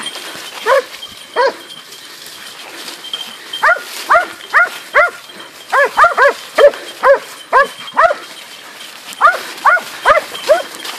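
Hunting dogs barking hard while baying a wild boar. A couple of single barks come first, then quick runs of several barks a second with short pauses between.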